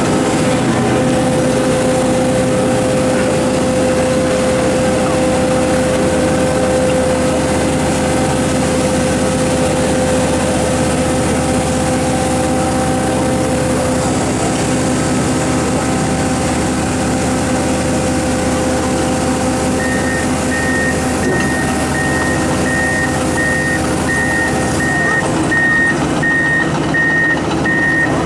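Komatsu PC4000-11 mining excavator's 1475 hp diesel running steadily under load, with a steady whine that stops about halfway through. About two-thirds of the way in, a warning alarm starts beeping about one and a half times a second.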